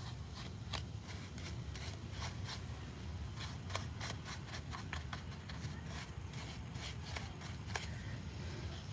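Paintbrush dabbing and stroking paint into the grooves of a concrete flower pot: a run of short, irregular scratchy strokes, a few a second, over a steady low rumble.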